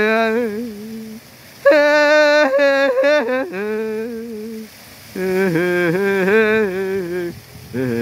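A person's voice humming long, wavering held notes in a meditative chant, in several phrases with short pauses for breath between them.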